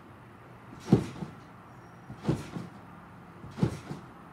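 A person bouncing on a trampoline: three thumps as he lands on the mat, about one and a half seconds apart, each followed by a lighter knock.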